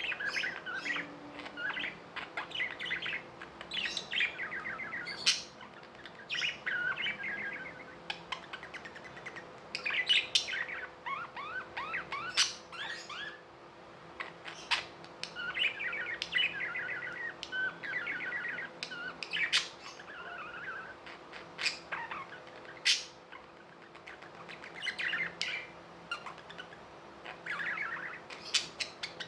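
Budgerigars chirping and warbling: a continual chatter of rapid trills and sharp high calls, with short pauses between phrases.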